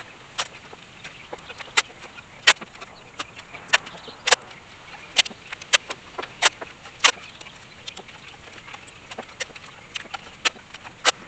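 Masking tape being pulled off the roll and torn into short pieces, a string of sharp, irregular crackles and snaps.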